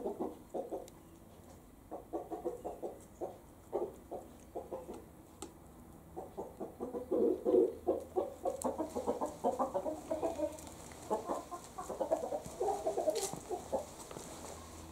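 Chickens clucking, a rooster and a hen, in runs of short clucks, busiest about seven and twelve seconds in. One sharp click near the end.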